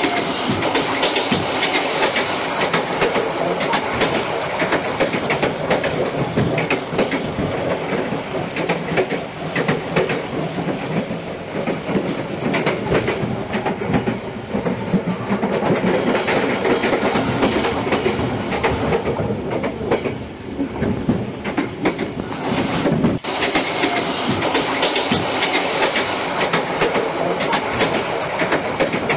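Model train, a BB301 locomotive with its wagons, running around the layout: a steady rumble of motor and wheels with rapid clicking over the rail joints. The sound dips briefly near the middle and breaks off for an instant a few seconds later.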